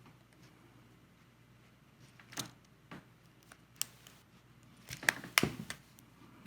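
Sharp plastic clicks and taps from the Logitech K750 keyboard's plastic case being pried apart at its edges, a few single clicks and then a cluster of louder snaps about five seconds in.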